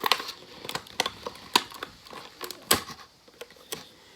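Plastic packaging crackling and clicking in irregular snaps as tape is picked and peeled off it, with one louder snap near the end.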